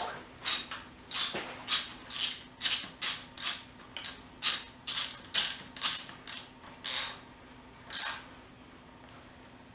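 Hand ratchet wrench clicking in quick repeated strokes, about two to three a second, as a bolt is run down easily on the engine. The strokes stop about eight seconds in.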